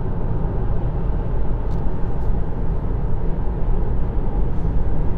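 Steady wind and tyre noise from an electric Kia e-Soul cruising on a wet expressway, heard from a camera mounted on the outside of the car, with heavy wind rumble on the microphone.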